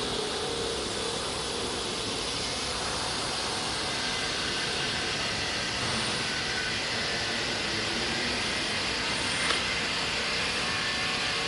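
CNC wood router running with a steady rushing machine noise, a single short click about nine and a half seconds in.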